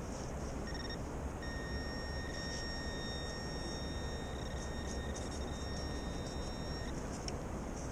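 Garrett Pro-Pointer AT pinpointer sounding a steady high tone for about five seconds after a short break, then cutting off: the probe is held right over a metal target in the dug sand. A low steady rumble runs underneath.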